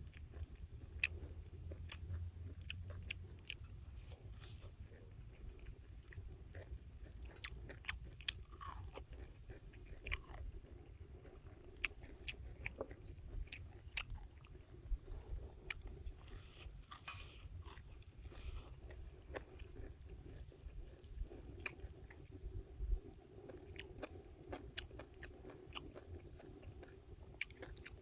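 A person chewing and crunching crispy fried battered mushrooms, with irregular sharp crunches.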